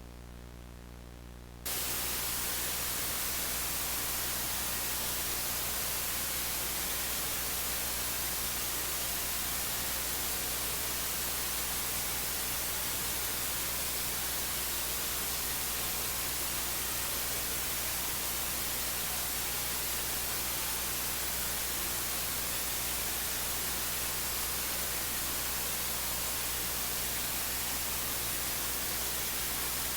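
A low electrical hum, then about two seconds in a steady television static hiss cuts in suddenly and holds, the sound of a broadcast gone off the air.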